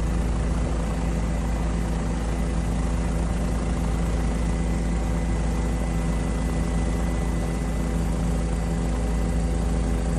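Steady engine drone of an aircraft in flight, with a deep rumble underneath and several steady tones held throughout.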